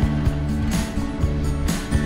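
Background music with a steady beat and held chords.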